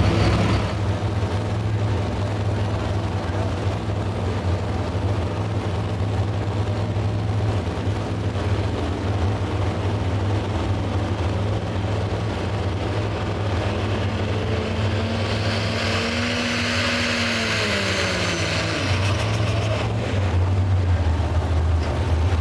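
Cummins diesel engine of a Dodge Ram pulling truck running hard under load as it drags the pulling sled, a loud steady low drone. A pitched whine rises over it and then falls away about three-quarters of the way through.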